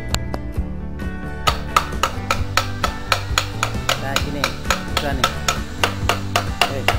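Background music with sustained tones, and over it a fast series of sharp taps, about three or four a second, starting about a second and a half in: a hand tool striking the dismantled office swivel chair's base.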